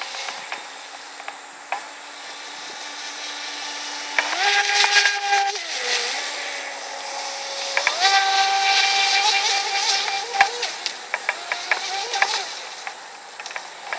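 Brushless electric RC speedboat running flat out across the water, its motor giving a steady whine over a hiss. The whine jumps up in pitch as the throttle opens about four seconds in, dips briefly near six seconds, climbs again at about eight seconds and fades after ten.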